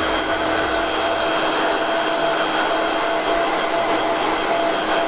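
Handheld hair dryer running steadily: rushing air with a steady motor whine.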